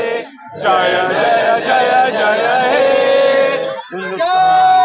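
A group of men singing together in unison without instruments, holding long notes, with short breaks just under a second in and about four seconds in.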